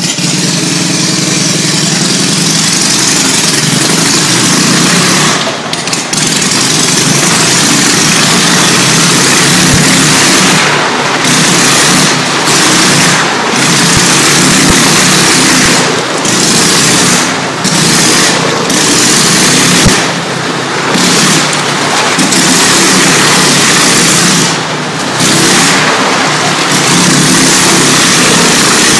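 Motorcycle engine running hard under throttle as the bike circles the vertical wooden wall of death, its sound swelling and dipping briefly every second or few seconds.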